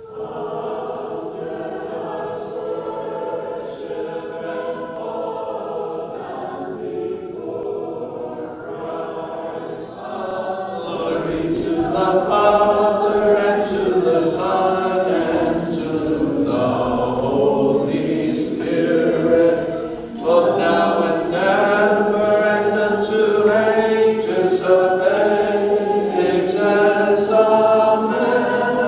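Church choir singing an Orthodox liturgical chant. The singing grows louder about a third of the way in.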